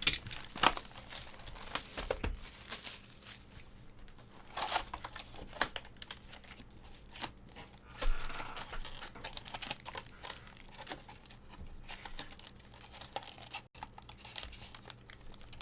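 Trading card pack wrappers being crinkled and torn open, with cards rustling as they are handled. The crackling is irregular, with louder bursts just after the start and about 8 seconds in.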